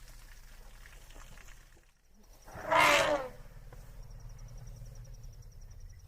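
An elephant calls once, a short, loud call about halfway through, over a steady low rumble.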